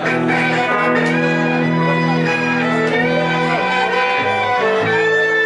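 A live string band plays an instrumental passage: fiddle bowing sustained melody notes over electric guitar and upright bass.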